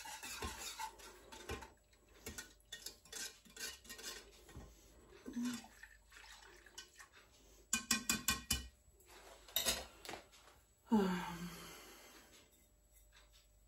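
A whisk scraping and clinking against a saucepan while the lemon filling is whisked, with a quick run of clinks about eight seconds in and a single louder, ringing clank near the end.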